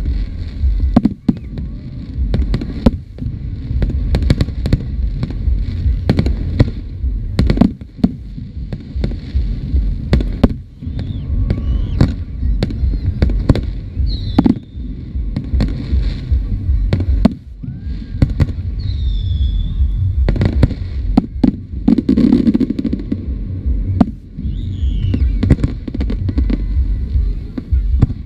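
Aerial firework shells bursting in quick succession: a dense run of sharp bangs over a continuous low rumble, with only brief lulls.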